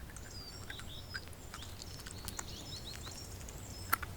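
Small birds chirping, with many short, high calls. Under them is a low steady background noise, and a sharp click comes near the end.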